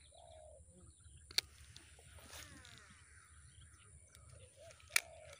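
Two sharp clicks, one about a second and a half in and one near the end, over faint outdoor background with a few short, low chirps.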